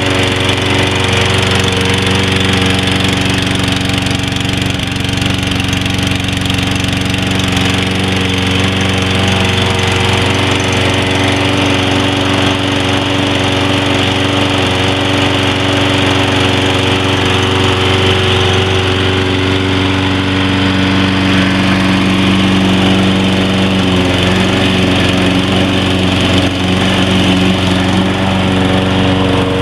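Briggs & Stratton 7.25 gross-torque engine on a 2013 Toro Personal Pace 22-inch walk-behind mower, running steadily after a start, its note shifting slightly now and then.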